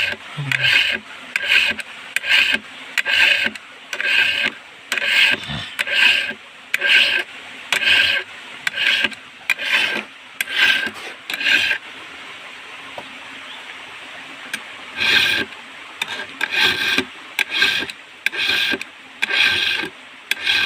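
Chainsaw chain being sharpened by hand with a file: rasping file strokes across the cutters, about one a second. The strokes stop for a few seconds a little past the middle, then resume.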